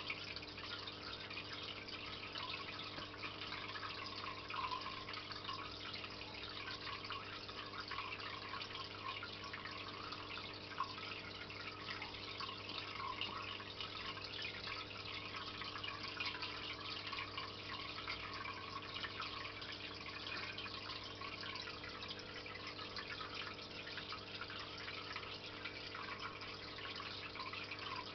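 Aquarium filter running: a steady stream of water trickling and dripping into the tank, over a low steady motor hum.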